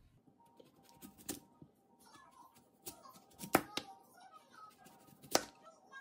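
Chef's knife cutting through a thick Korean radish and knocking down onto a plastic cutting board: a few sharp knocks, the loudest two about three and a half and five and a half seconds in.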